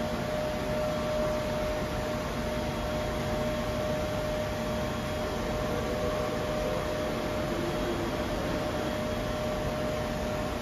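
OPS Ingersoll Gantry Eagle 500 die-sinking EDM machine running: a steady mechanical whir and hiss with a steady high whine over it, while its axes move.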